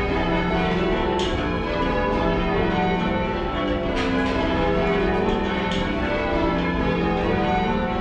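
A light ring of ten church bells change ringing, heard from the ringing room below the bells: a continuous, dense stream of overlapping bell strikes, rather quiet and slightly mushy.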